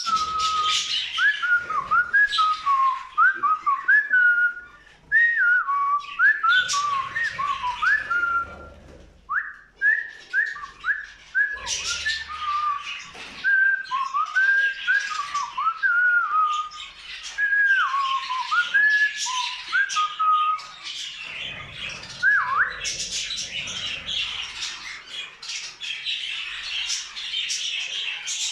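A person whistling short, sliding phrases at budgerigars, which chatter, chirp and squawk throughout. The whistling stops about three-quarters of the way through while the budgie chatter carries on, louder.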